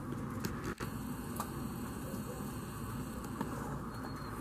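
Steady outdoor hiss of light rain falling on a wet yard, with a few faint ticks.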